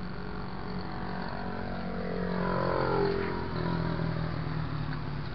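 A motor vehicle passes by, loudest about three seconds in, its engine note falling in pitch as it goes past, over a steady low hum of traffic.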